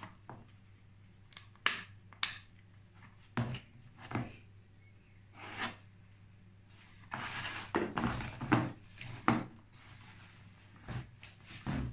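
Handling noise from a two-cylinder car tyre air compressor that is switched off and being turned over and set down by hand: scattered knocks and clicks of its plastic housing, metal handle and hose, with a longer stretch of rubbing and rustling past the middle.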